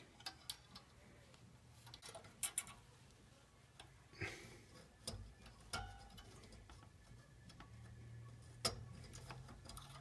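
Faint, scattered clicks and taps of copper wire against the metal trolley and emergency release lever of a garage door opener, as the wire is threaded through the release's spring holes to wire it shut. A few sharper clicks come about two and a half seconds in and near the end.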